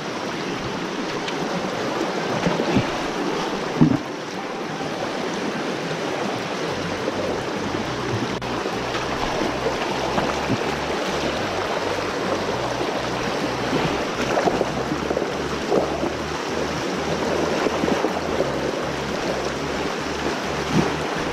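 Shallow mountain stream rushing over rocks, a steady wash of running water, with one brief knock about four seconds in.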